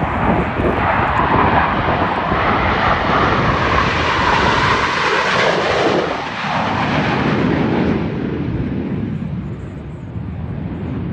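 Jet engine noise from Blue Angels F/A-18 Super Hornets flying past. It is loudest through the middle, shifts in tone about six seconds in as the jets pass, then fades over the last few seconds.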